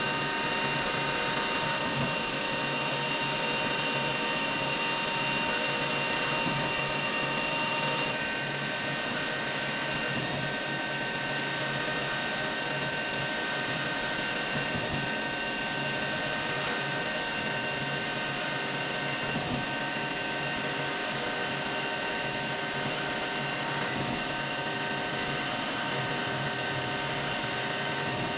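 CNC milling machine running with a steady high-pitched spindle whine and several fixed tones, the set of tones shifting slightly about eight seconds in.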